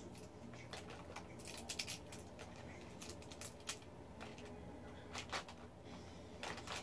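Pens clicking and clacking against each other as they are handled in a clear plastic pencil case: scattered light clicks, a few louder ones.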